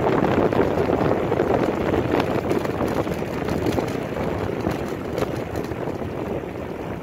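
Wind rushing over the microphone of a bicycle coasting downhill at speed, with the tyres rumbling on the tarmac; the rush gradually gets quieter.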